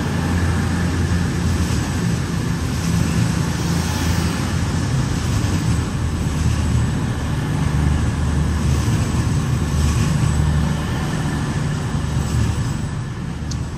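East Midlands Railway Class 222 Meridian diesel multiple unit pulling out of the platform, its underfloor diesel engines running with a steady low drone as the carriages pass.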